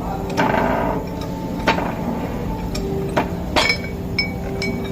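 Hammer striking metal about half a dozen times at uneven intervals, each strike leaving a short metallic ring, over a steady low hum.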